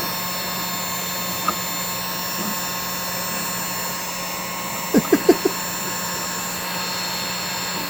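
Heat gun on its low setting running steadily: an even blowing hiss over a constant fan-motor hum. It is softening 3D-printed PLA.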